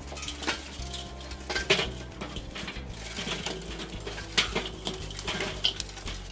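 Hot charcoal tipped out of a metal chimney starter into a Weber kettle grill's steel charcoal baskets, the coals clinking and clattering in a quick, irregular run of sharp knocks.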